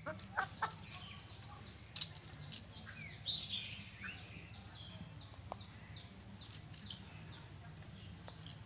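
Birds chirping: a quick run of short, high, falling chirps, with a few sharp clicks and a steady low hum underneath.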